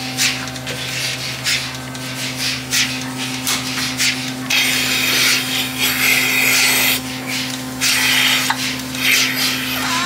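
Milking machine at work: a steady vacuum-pump hum under repeated short hisses of air sucked into the teat cups as the milking unit is put on a cow's teats, with a longer steady hiss a few seconds in.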